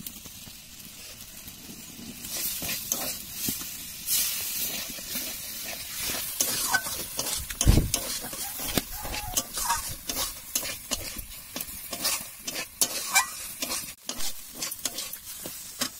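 A metal spatula scrapes and stirs banana flower sabzi around a metal kadai in quick strokes while the food sizzles in the pan. There is a single dull thump about eight seconds in.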